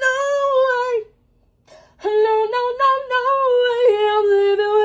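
A woman singing long, drawn-out wordless notes in a small room. She breaks off about a second in, then starts again about two seconds in, stepping between held notes.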